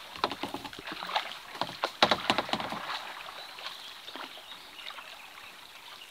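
Double-bladed kayak paddles dipping into river water: a run of small splashes and drips over a steady wash of moving water, busiest about two seconds in.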